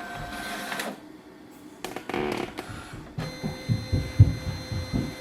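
Brother MFC-L2710DW all-in-one laser printer starting a flatbed scan: a few mechanical start-up sounds, then from about three seconds in a steady high whine of the scan head's drive motor with low pulsing beneath it.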